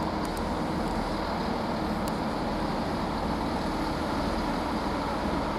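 Pair of Class 165 diesel multiple units running with a steady engine hum and low rumble.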